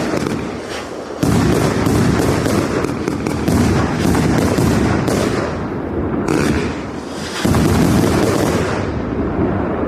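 A 100-shot firework cake firing a rapid, non-stop barrage of bangs. It gets louder about a second in and again after about seven seconds, then thins out near the end.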